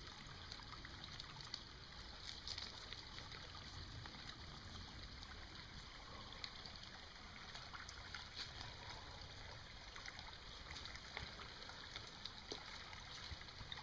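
Faint, steady trickle of a shallow mountain creek that is running very low, with a few light clicks.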